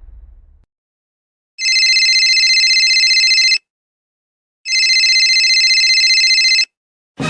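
Telephone ringing: two electronic trilling rings of about two seconds each, a second apart.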